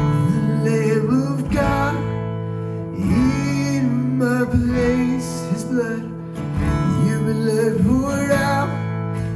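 Worship band music led by strummed acoustic guitar, with a melodic line above it and perhaps faint singing.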